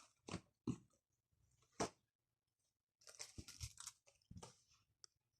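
Faint crinkling and rustling of packaging being handled during unboxing: a few short crackles, then a brief patch of crackling about three seconds in.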